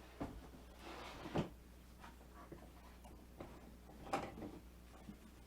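Welding gear being handled and set down: a few knocks, the loudest about a second and a half in and another about four seconds in, with some rustling in between.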